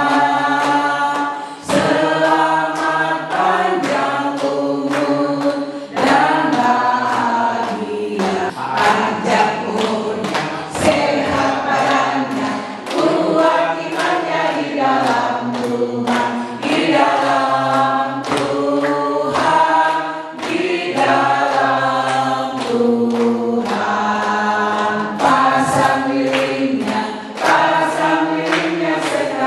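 A group of men and women singing an Indonesian birthday song together, clapping along in time.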